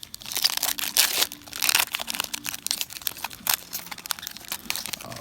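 Crinkling and crackling of a foil Yu-Gi-Oh booster pack wrapper being handled, with a rapid run of small crackles that is loudest in the first two seconds.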